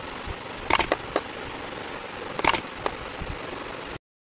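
Knife blade slicing through a block of kinetic sand: faint gritty crunches over a steady hiss, with two loud sharp clicks, about a second in and two and a half seconds in. The sound cuts out suddenly near the end.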